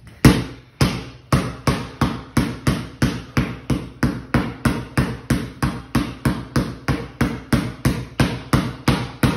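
Basketball dribbled steadily on a bare concrete floor, a regular run of bounces at about two and a half a second.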